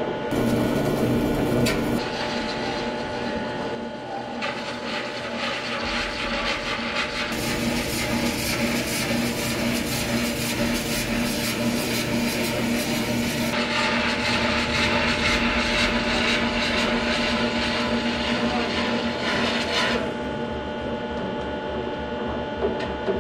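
Large metal-spinning lathe running while long hand-held spinning bars press and rub on the rotating metal disc being formed into a satellite antenna dish. A steady machine hum lies under a hissing scrape that swells and fades, strongest and brightest through the middle.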